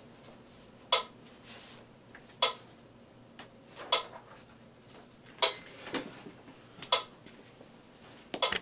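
Metronome ticking at 40 beats a minute, one sharp click every second and a half, in 4/4 time. The first beat of the bar, about five and a half seconds in, has a brighter, ringing accent.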